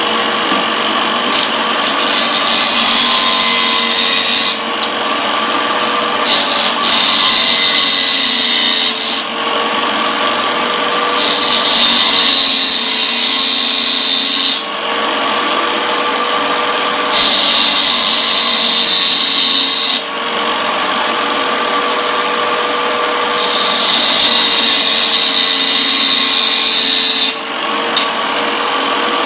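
Small tile cutter's diamond wheel running steadily with a motor whine, while the teeth of a carbide table-saw blade are ground against it: five grinding passes of about three to four seconds each, with the wheel spinning on alone between them. This is the sharpening of the carbide teeth on the diamond wheel.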